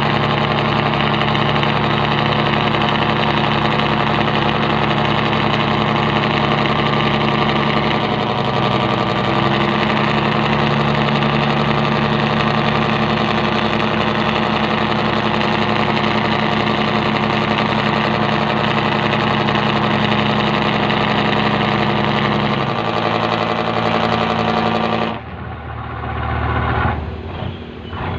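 Fishing boat engine running steadily, its pitch shifting slightly a couple of times. About 25 seconds in it drops abruptly to a quieter, uneven pulsing rumble.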